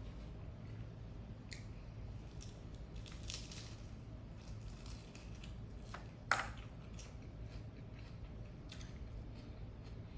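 A person biting and chewing a crisp fried tortilla shell topped with lettuce: scattered small crackles and crunches, with one sharp, loud crunch of a bite about six seconds in.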